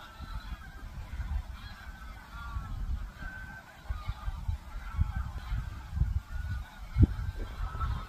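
A flock of wild geese calling: many short honks overlapping one another throughout, over a low rumble, with a single dull bump about seven seconds in.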